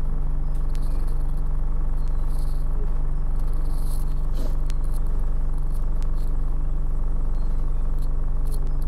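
Steady low drone of a bus's engine and running gear, heard from inside the passenger saloon, with a few faint light clicks over it.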